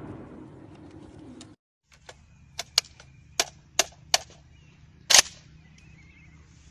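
The tail of automatic gunfire fades out and stops abruptly. After a short gap come six sharp clicks or cracks in under three seconds, the last the loudest, over faint bird chirps.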